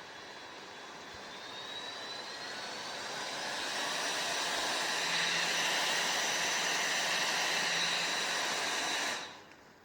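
GKT mini portable fan running, its small motor whining over the rush of air. It speeds up over the first few seconds, with the whine rising and the air growing louder, then runs steady before cutting off near the end.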